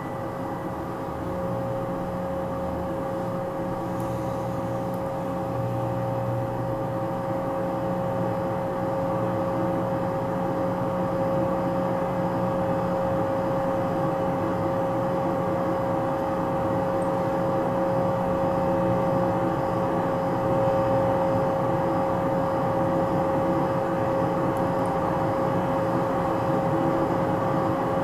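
Electronic drone from the speakers: a steady sustained sound of several held tones over a low rumble, slowly growing a little louder.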